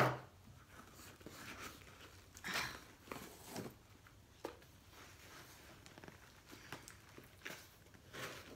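Cardboard mailer box being handled: scattered rustles, scrapes and small clicks of cardboard, the loudest about two and a half seconds in.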